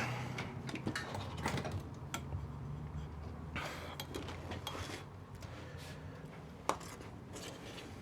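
Small clicks and rustles of wires and tools being handled on a workbench, with one sharp click near the end, over a faint low hum.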